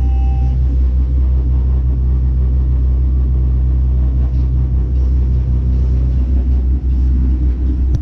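Boat engine running steadily underway, a loud, even low drone, with the rushing wash of the wake and wind behind it.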